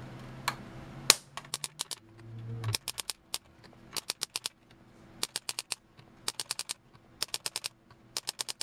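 Piezo gas-grill igniter snapping again and again as its spark is discharged into a multimeter's input, in quick runs of about five clicks roughly once a second.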